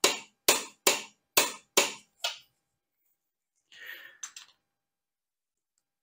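Click-type torque wrench, set to 55 ft-lb, clicking over repeatedly on a motorcycle rear axle nut: six sharp clicks about half a second apart, meaning the nut has reached its set torque. A softer clatter of metal follows about four seconds in.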